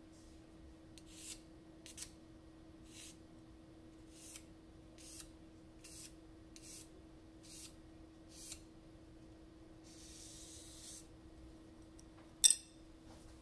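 Pencil lead scratching short lines across the face of a Naniwa Chosera #400 whetstone, one quick stroke about every half second to second, marking a grid before the stone is flattened. A longer scraping stroke follows, then a single sharp click near the end, the loudest sound.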